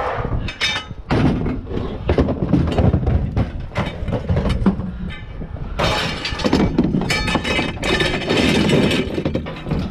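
Scrap metal clattering and crashing in a run of sharp impacts, growing denser about six seconds in.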